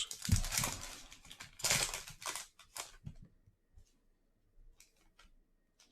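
Foil wrapper of a 2020 Topps Chrome Sapphire Edition card pack being opened: two crinkly rips in the first three seconds, then a few faint clicks.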